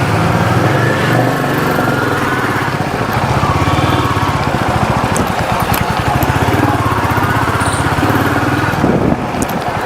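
Royal Enfield Meteor 350's single-cylinder engine running steadily, its even firing pulses forming a continuous thump.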